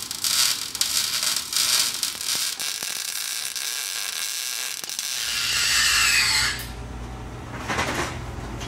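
Welding arc crackling and sizzling steadily as a weld is laid on the truck's leaf-spring mounting. About five seconds in, the crackle stops and a steady low hum remains.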